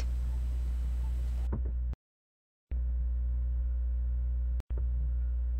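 Steady low electrical hum in the recording, with faint higher overtones above it. It cuts to dead silence about two seconds in, comes back under half a second later, and drops out again for an instant near the end.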